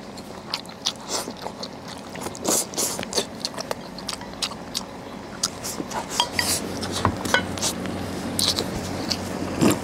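Chopsticks and spoons clicking and scraping against bowls while eating, with many small separate knocks. A low steady hum comes in a little past halfway.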